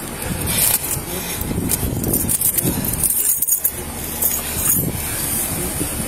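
Rubbing and knocking of clothing against a body-worn camera's microphone as the officer moves. From about halfway in, a vehicle engine idles with a steady low hum underneath.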